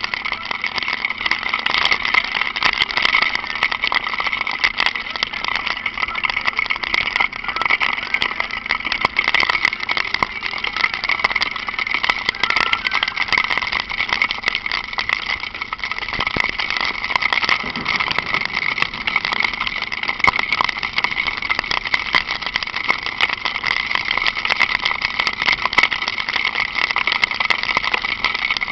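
Honda NX4 Falcon 400 single-cylinder motorcycle running steadily while ridden in light rain. Its engine is mixed with a constant rush of noise and a dense scatter of small ticks throughout.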